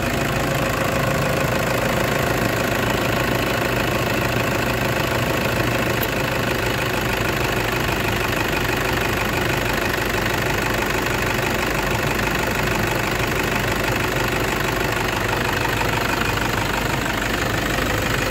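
Toyota Hilux engine idling steadily.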